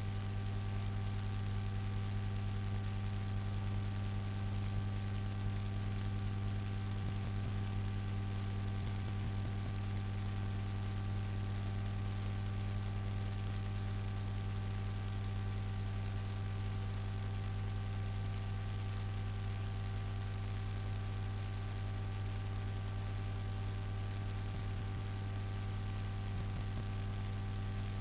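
Steady electrical hum, strongest low down with a ladder of fainter steady tones above it, over an even hiss.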